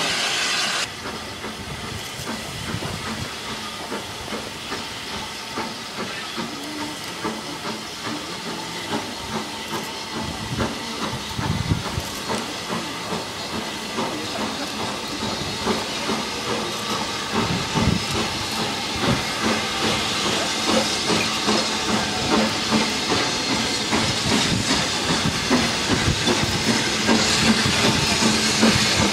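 BR Standard Class 9F 2-10-0 steam locomotive no. 92212 approaching, with a steady steam hiss and soft exhaust chuffs, growing louder as it draws near.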